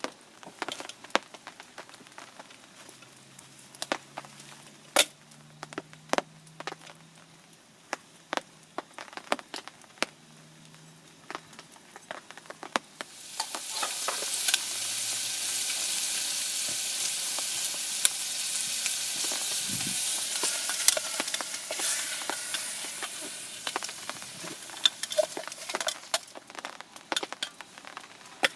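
Light clicks and knocks of cooking utensils, then about halfway through food starts sizzling loudly in a hot pan, frying steadily before gradually dying down near the end.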